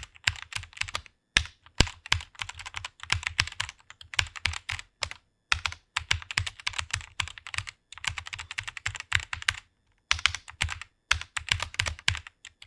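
Fast typing on a computer keyboard: rapid runs of key clicks in bursts of a second or two, broken by brief pauses between words.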